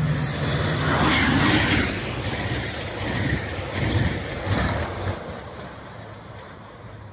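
Metrolink passenger train with a diesel locomotive passing at speed: a loud rush of engine and wheels, then a few wheel thumps as the bi-level coaches go by, fading away as the train recedes.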